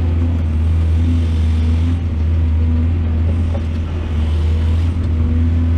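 Large diesel engine of a mining excavator running steadily with a deep, even drone.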